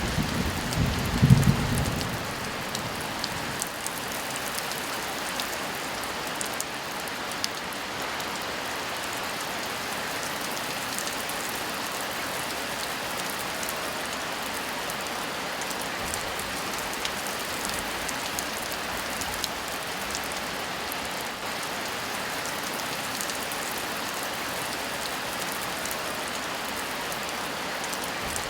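Steady heavy rain, an even hiss of drops on a surface. A low rumble of thunder at the start dies away about two seconds in.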